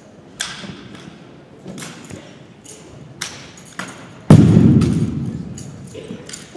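Drill rifle being spun, slapped and caught by hand in an exhibition drill routine: a string of sharp smacks and clicks, then one loud thud about four seconds in that rings on through the gym's echo.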